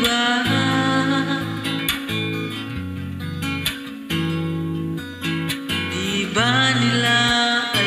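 A man singing along to a backing track with strummed acoustic guitar, his voice carried through a condenser microphone.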